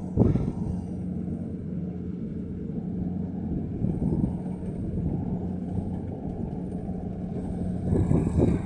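Kubota DC-70 combine harvester's diesel engine running steadily with a low hum, growing louder near the end.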